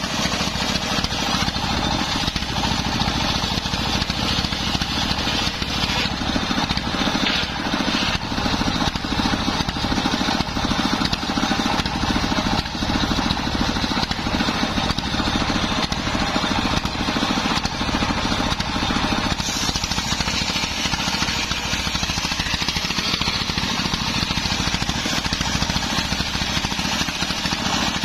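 Homemade circular saw bench driven by belt from a single-cylinder stationary diesel engine, its large blade ripping a teak log lengthwise. The engine's rapid, steady chugging runs under the hiss of the blade cutting through the wood.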